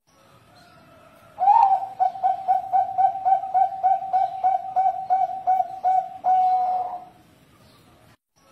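Bangkok-bred zebra dove (perkutut) singing its cooing song. It opens with a rising note about a second and a half in, runs into a quick, even series of about four coos a second, and closes with a longer drawn-out coo near the end.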